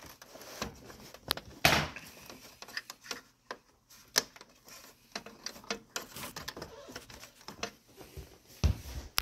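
Scattered clicks, taps and knocks of hard parts being handled inside a desktop computer case during disassembly, with a louder knock about two seconds in and a dull thump near the end.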